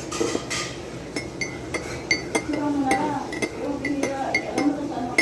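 A spoon clinking against a cup of warm lemon-and-honey drink as it is stirred, with short ringing clinks about three times a second. Low voices can be heard underneath.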